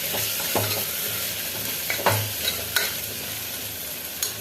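Potatoes in a spiced tomato masala sizzling in a pressure cooker as they are stirred, with the spatula scraping and knocking against the pan about five times.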